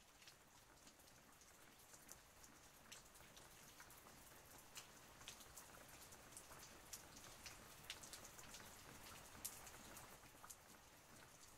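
Faint light rain: a soft hiss with irregular ticks of single drops hitting a hard surface, a little busier in the later part.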